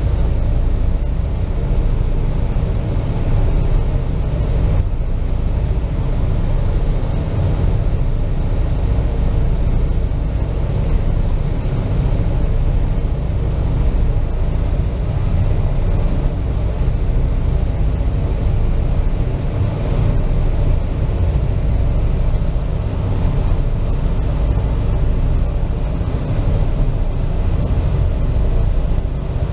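Ferry boat's engine running with a steady low rumble, heard from inside the passenger cabin.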